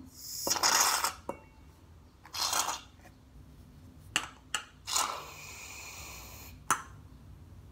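Aerosol can of shaving cream hissing as foam is sprayed out in several bursts, the longest lasting about a second and a half, with a few sharp clicks between.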